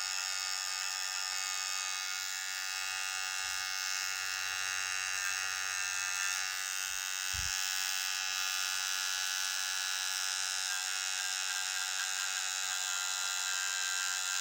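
Kemei 2918 cordless hair trimmer running steadily, its motor and blade making an even, high-pitched buzz.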